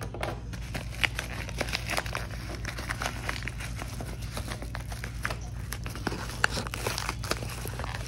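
Yellow padded mailer and the cardboard inside it being torn open by hand: irregular crinkling, crackling and tearing of paper.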